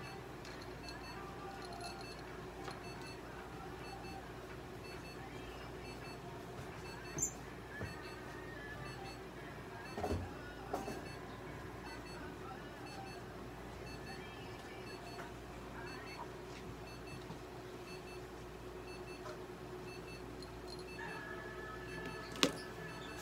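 Steady low hum of room equipment with faint high beeps repeating at regular intervals, and a few brief knocks.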